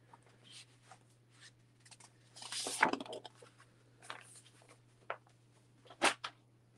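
Sheets of patterned paper being handled and laid flat on a desk: light rustling and scattered taps. The loudest rustle comes about two and a half seconds in with a sharp tap, and another sharp tap comes about six seconds in.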